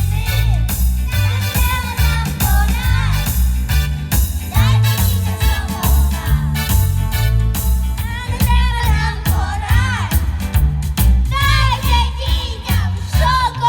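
Upbeat pop song with a heavy pulsing bass beat, sung by young children's voices over the backing track.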